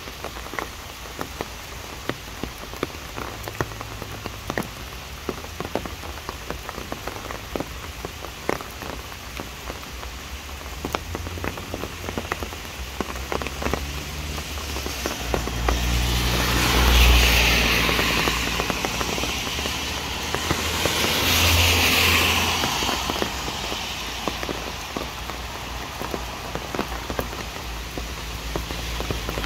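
Steady rain falling on leaves and wet pavement, with many separate drops ticking. About halfway through, twice in a row, a vehicle swishes past on the wet road, each pass rising and falling over a few seconds.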